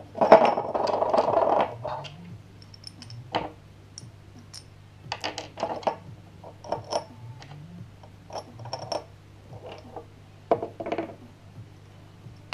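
Hand tools and small engine parts being handled during a small pit-bike engine teardown. Near the start there is about a second and a half of rapid metallic rattling, then scattered light metal clinks and taps as a socket wrench and parts knock against the engine and a wooden table. A faint steady hum runs underneath.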